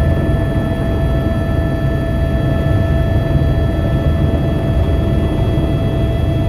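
Helicopter turbine and rotor running steadily, heard from inside the cabin as it moves low over the tarmac: a dense low rumble with a steady whine on top.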